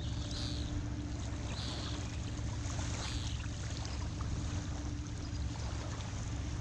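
Steady low drone of a distant vessel's engine, with water washing lightly at the shoreline.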